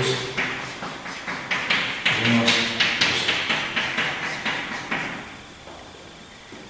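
Chalk tapping and scraping on a blackboard as a row of plus and minus signs is written: a quick run of sharp taps, about four or five a second, that stops about five seconds in.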